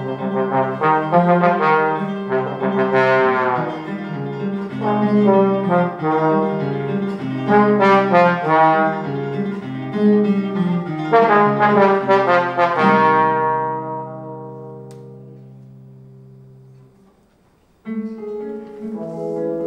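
Trombone playing a phrase of changing notes with acoustic guitar. About 13 seconds in, a long low note fades away to a brief near-silence, and the music starts again near the end.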